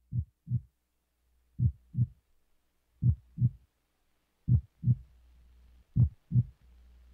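Heartbeat sound effect: slow lub-dub double thumps, five pairs about one and a half seconds apart, growing slightly louder, over a faint low hum.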